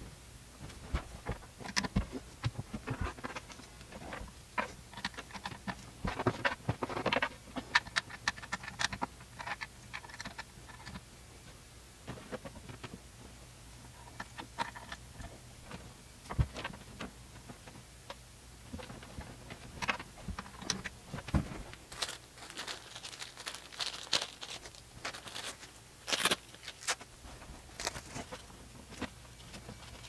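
Handling noise of cable management: irregular clicks, taps and scrapes as computer cables and plastic cable-management parts are moved and worked into place, with a denser run of sharp clicks near the end.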